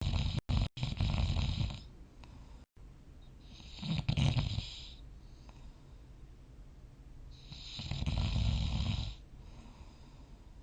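A sleeping person snoring: three long snores spaced a few seconds apart, each a low rumble with a breathy hiss over it. The first snore is broken by a few brief cut-outs.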